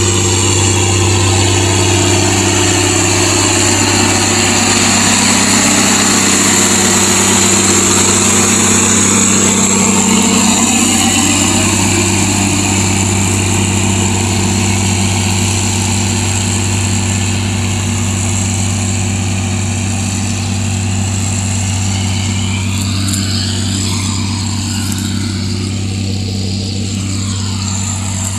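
Large four-wheel-drive farm tractor's diesel engine running steadily under load as it pulls a pasture ripper through sod, growing a little fainter in the second half as it moves away.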